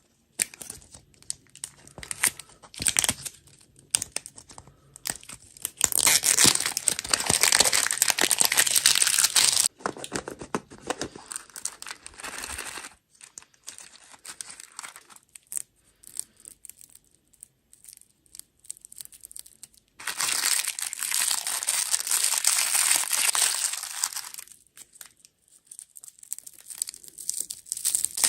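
Plastic candy and dessert wrappers being crinkled and torn open. There are two long stretches of dense rustling, about six seconds in and again about twenty seconds in, with scattered crackles in between.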